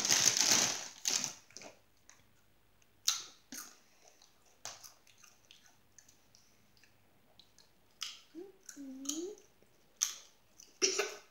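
A Doritos chip bag crinkling as a hand reaches in, then a child crunching Doritos tortilla chips, with sharp single crunches every second or so. A short wavering hum comes about eight seconds in.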